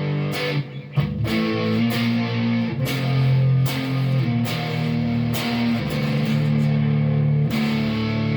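Electric guitar on its new GFS neck humbucker, played through a Marshall Origin amp with a little gain: chords strummed about once a second and left to ring, with a short break about a second in.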